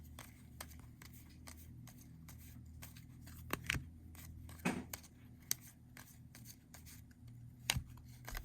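Trading cards being handled and flicked through by hand: scattered soft clicks and card-stock snaps, a few sharper ones, over a faint low room hum.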